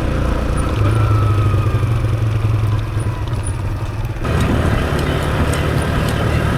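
Motorcycle engine running steadily on the move, with road noise. The sound changes abruptly about four seconds in.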